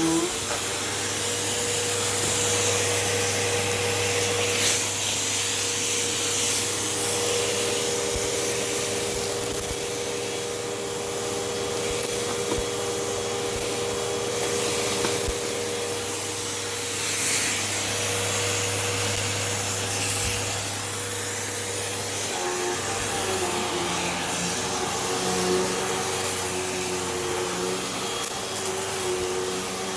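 Hoover Elite Rewind Plus upright vacuum cleaner running steadily with a motor hum. The hum changes pitch about two-thirds of the way through.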